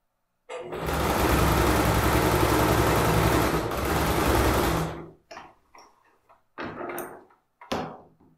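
Electric domestic sewing machine running steadily at speed for about four and a half seconds, topstitching along a seam, then stopping. A few short clicks and rustles follow as the work is handled.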